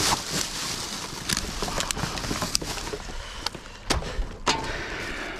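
Rubbish being rummaged through in a dumpster: irregular sharp knocks and clinks of hard items such as bottles being moved about, over a steady rustling noise.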